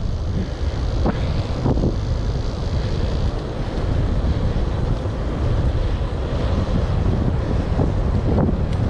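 Wind buffeting the microphone of a helmet-mounted camera on a moving bicycle: a steady low rumble.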